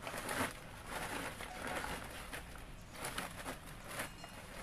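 Faint, intermittent rustling and handling noise from a woven plastic sack as bones are lifted out of it.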